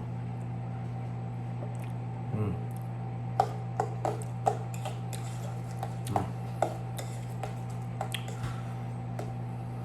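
Eating sounds: a utensil clicking and scraping against a bowl or container a dozen or so times, with soft squishy food noises, over a steady low electrical hum.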